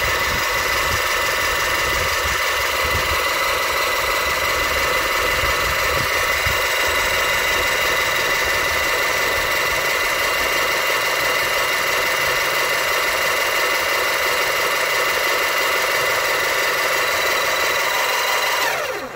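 Electric car jack's motor running steadily with a whine as the jack lowers the car, then cutting off suddenly near the end when it is switched off.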